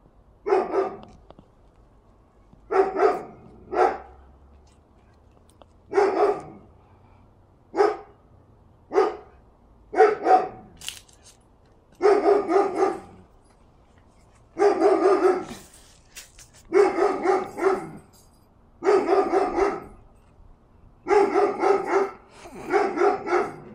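A big dog barking over and over: single barks at first, then from about halfway longer runs of quick barks every second or two.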